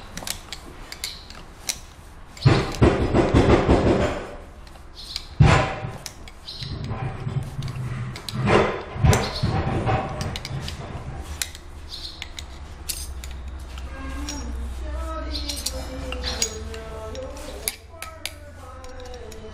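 Metal tools clinking and scraping on the steel shaft and bearing of a ring die pelletizer roller as pliers work a retaining ring into place: many sharp metallic clicks, with a few louder noisy stretches in the first half.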